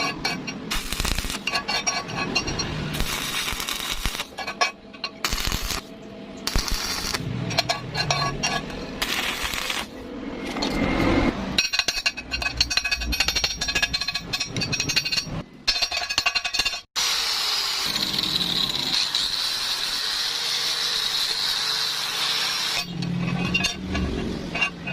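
Metalworking sounds in quick cuts: clinking, tapping and knocking of metal parts and tools, with a steadier machine whine for several seconds after the middle.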